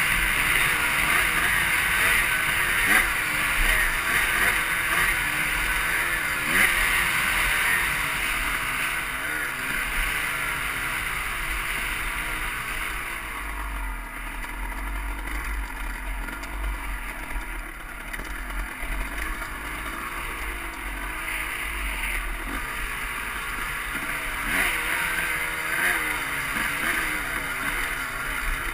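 Honda CR250 two-stroke dirt bike engine heard from the rider's helmet, its pitch rising and falling with the throttle while riding a rocky trail. It eases off and runs quieter for several seconds around the middle, then picks up again toward the end.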